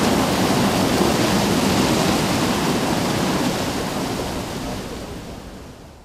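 Steady rush of river water pouring down a wooden chute into a natural washing-machine tub, fading away over the last couple of seconds.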